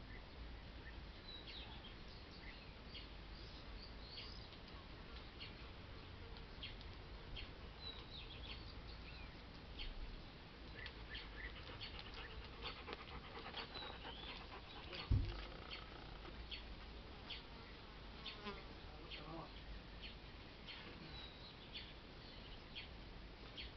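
Quiet outdoor yard ambience with many short, high chirps scattered throughout. One low thump about fifteen seconds in is the loudest sound.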